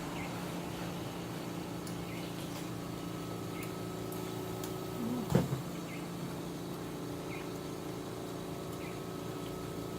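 A steady low hum, with one sharp knock a little past halfway.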